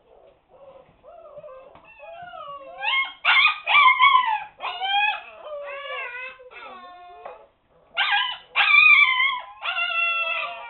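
Several seven-week-old husky puppies howling and whining, a run of long cries that bend up and down in pitch, faint at first and loud from about three seconds in, with a short break near the end before they start again. They are crying at being shut in their puppy pen.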